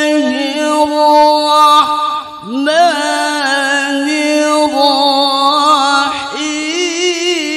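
A male qari reciting the Quran in the melodic tilawah style into a microphone, drawing out long ornamented notes with a wavering pitch, with a short break for breath about two seconds in.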